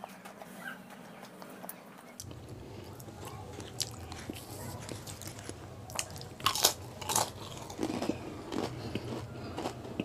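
A person biting and chewing a crisp fried samosa, the pastry crunching and crackling, with a run of loud crunches a little past the middle.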